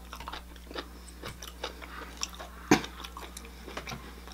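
A man chewing and biting a mouthful of food close to the microphone, with many small, irregular wet clicks and crackles and one sharper click about two-thirds of the way through, over a steady low hum.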